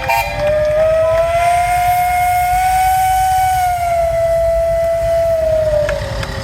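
Steam traction engine whistle blowing one long single-note blast. Its pitch rises slightly at first and sags as it dies away near the end.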